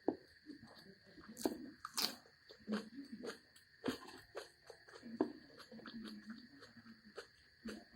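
Close-up eating sounds: chewing and crunching food, with irregular wet mouth clicks and smacks.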